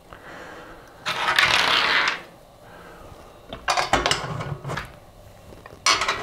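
Protective paper sliding out from under the Z-rail with a scraping rustle for about a second, then light metallic clicks and taps of parts being handled on the aluminium extrusion frame, with a sharper click near the end.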